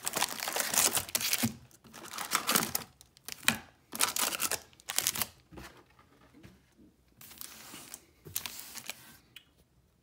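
Foil baseball card packs crinkling and rustling as they are pulled out of a cardboard hobby box and set down in stacks on a wooden shelf. The handling is busiest in the first half and fainter and more scattered after.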